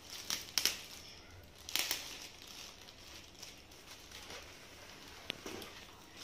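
A laptop's clear plastic wrapping crinkles as it is handled and pulled off, in several short rustles, the loudest in the first two seconds. A sharp click comes a little past five seconds in.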